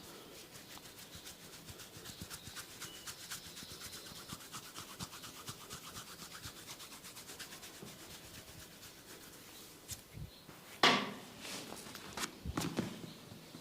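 Massage strokes rubbing quickly and rhythmically over the body, about five strokes a second. About eleven seconds in there is one sudden loud burst, followed by a few sharp knocks.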